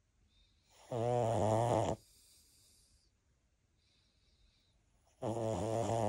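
Loud snoring: two long snores of about a second each, the first about a second in and the second near the end, with faint hissing breaths between them.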